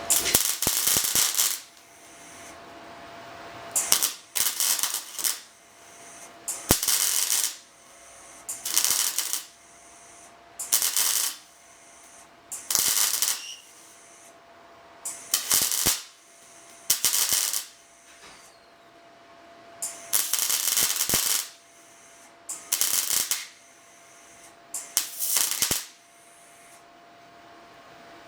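MIG welder crackling in about a dozen short bursts, each a second or less and one to two seconds apart, as rust holes in a car's steel panel are tack-welded shut. A faint steady hum sounds between the bursts.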